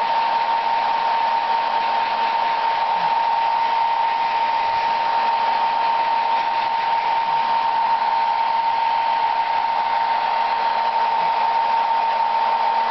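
Handheld hair dryer running steadily, drying an opossum's fur after a bath: a constant rush of air with a steady whine through it.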